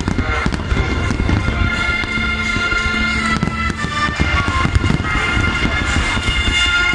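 Aerial fireworks bursting in a dense, continuous barrage of bangs, with music playing along.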